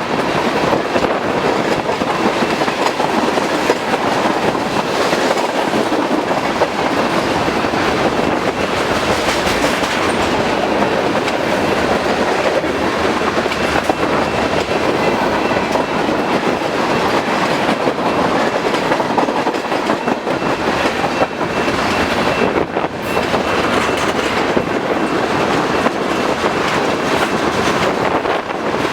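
Freight cars of a long mixed manifest train rolling past at speed, wheels clicking steadily over the rail joints in a loud, continuous clatter of steel wheels on rail.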